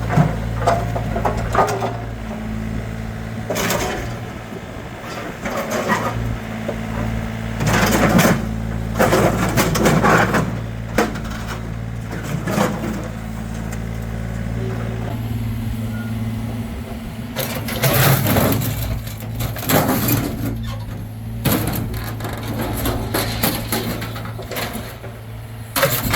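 Excavator engine running steadily, with repeated loud bangs and crunches of metal as an old barbecue is crushed and broken up.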